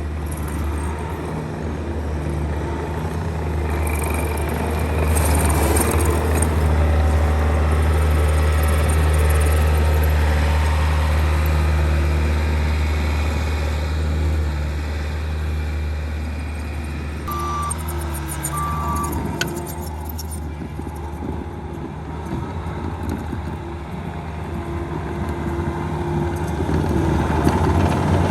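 Diesel engine of compact heavy equipment running, swelling louder a few times as it works. Two short high beeps sound about two-thirds of the way through.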